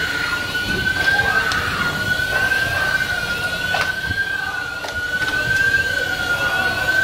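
A high, continuous alarm tone that wavers slowly up and down in pitch, with a few sharp knocks around the middle.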